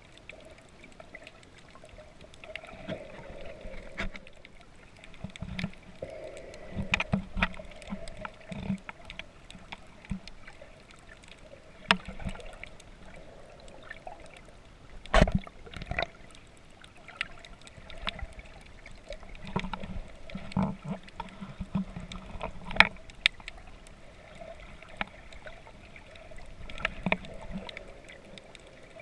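Muffled water sloshing and gurgling heard with the microphone underwater, broken by irregular clicks and knocks, the loudest about halfway through.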